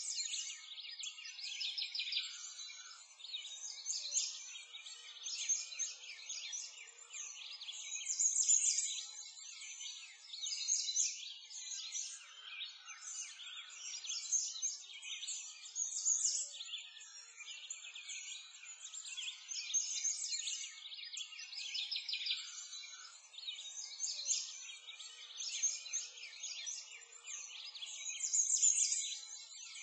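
A chorus of many small birds chirping and singing at once, a dense run of short, high calls with no pause.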